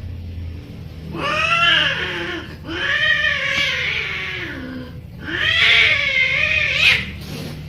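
Domestic cats caterwauling while mating: three long, wavering yowls, one after another.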